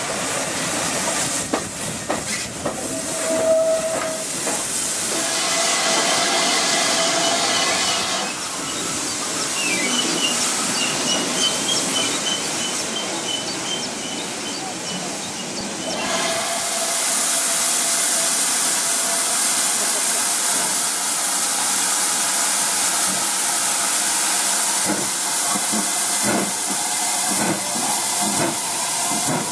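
Steam locomotive sounds: steady running noise with a whistle note sounding briefly twice in the first third, then, from about halfway on, a loud steady hiss of escaping steam.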